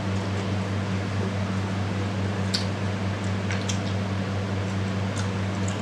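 Steady low electrical hum over an even hiss, with a few faint, short wet clicks of eating: rice and curry being chewed and handled by hand.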